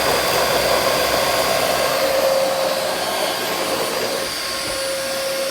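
Vacuum cleaner running steadily: a rush of suction air over a constant motor whine.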